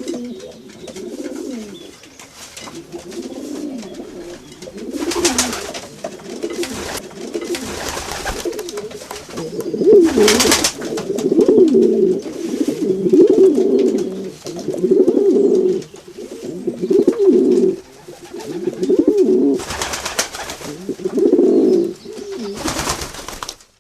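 Pigeons cooing: repeated low, rolling coos that overlap and grow louder about halfway through. A few brief hissy bursts are mixed in.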